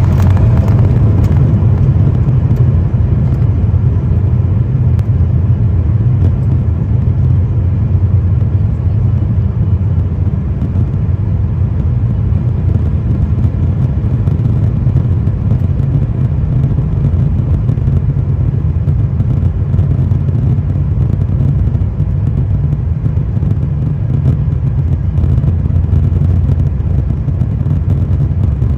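Cabin noise inside an Embraer E175 regional jet rolling on the ground: a loud, steady low rumble of its GE CF34 turbofan engines and wheels, with no spool-up.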